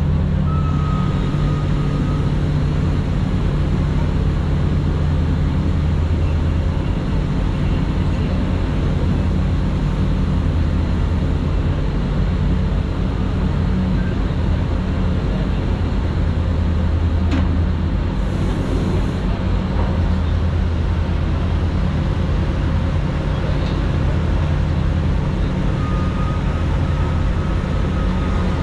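Steady low engine drone over a constant rushing noise, with one sharp click about two-thirds of the way through.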